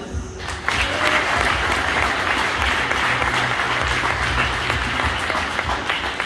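Audience applauding, with many hands clapping. The clapping starts about half a second in and eases off near the end.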